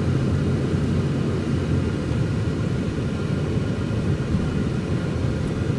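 Steady low rumble of a car driving on a snowy road, heard from inside the cabin: engine and road noise.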